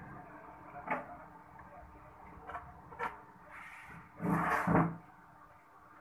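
Light clicks and taps of tweezers and a soldering iron against an opened phone's frame and circuit board, a few separate ticks, then a louder, longer clatter about four seconds in as the phone and tools are handled.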